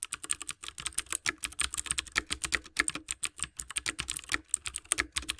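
Computer keyboard typing sound effect: a fast, uneven run of key clicks, many a second.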